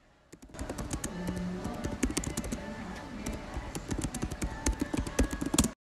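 Rapid, irregular keystrokes on a laptop keyboard as a web search is typed, starting about half a second in and cutting off abruptly near the end, with music underneath.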